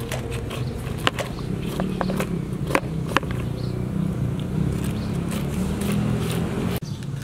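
A hand peeler scraping spines and skin off a green cactus stem, giving several sharp clicks and scratches in the first half, over a steady low hum.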